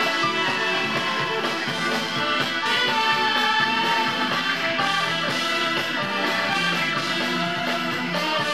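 A jazz-fusion band playing live, with electric guitars and keyboard.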